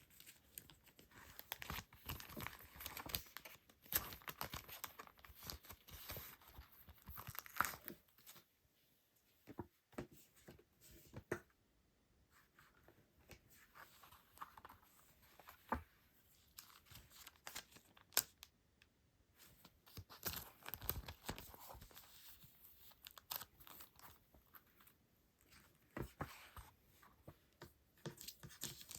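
Packaging being unwrapped by hand: plastic and paper crinkling and tearing in irregular bursts, with quieter pauses in the middle.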